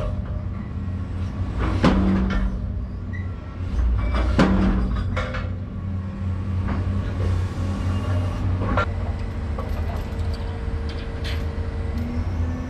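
Excavator bucket bashing down on top of a steel slide-rail shoring pillar and panel, heard from inside the cab: heavy strikes about two, four and a half and nine seconds in, each with a short ringing, over the excavator's steady engine. The blows set the wall so it won't move and straighten the pillar, which is held up only by the two panels.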